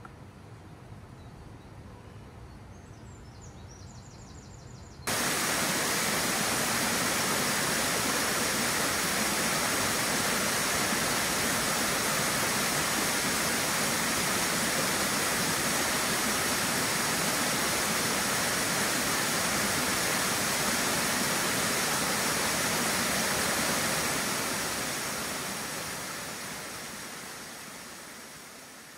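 Steady loud rushing water, like a waterfall or fast mountain stream, cutting in abruptly about five seconds in and fading out over the last few seconds. Before it, quiet outdoor ambience with a brief bird chirp.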